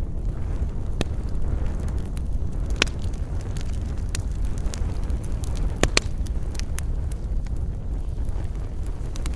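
Wood fire burning with a steady low rumble and scattered sharp crackles and pops, the loudest a little under three seconds in and twice close together near six seconds in.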